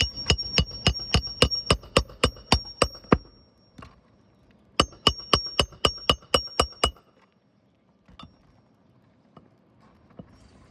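Hammer blows ringing on a steel tool driving a roofing nail in under an overlapping asphalt shingle: a quick run of about a dozen strikes, about four a second, a pause, then a second run of about nine.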